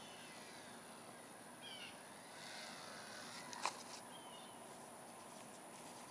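Faint outdoor background noise with a few short bird chirps, and one sharp click about three and a half seconds in.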